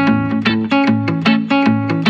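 Background music: a plucked, guitar-like instrument picking out a quick run of notes, several a second.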